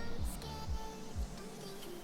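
Background music with a steady beat and a melody; the beat drops out about one and a half seconds in while the melody carries on.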